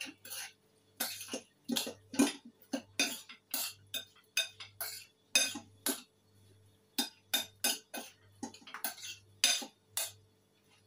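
A spoon clinking and scraping against a bowl as a salad is tossed and mixed, in short irregular strikes about one or two a second.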